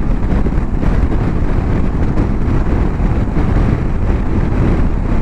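Riding noise on an Aprilia Tuareg 660 at road speed: a steady wind rush buffeting the microphone, with the bike's parallel-twin engine and tyres running beneath it.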